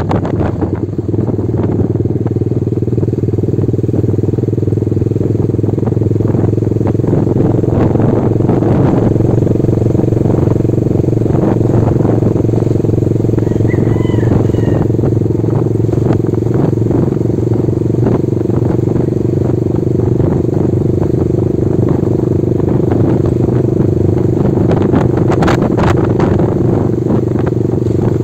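Small motorcycle engine running steadily as it rides along a road.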